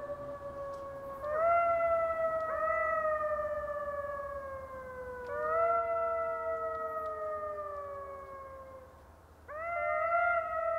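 Howling, likely jackals: long overlapping howls that each start with a brief rise and then slide slowly down in pitch. A new howl enters four times, the last after a short dip near the end.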